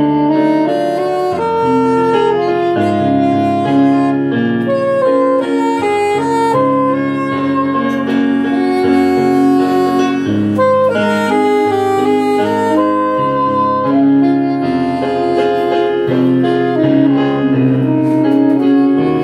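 A saxophone playing a slow melody line of held notes over sustained chords on an electronic keyboard.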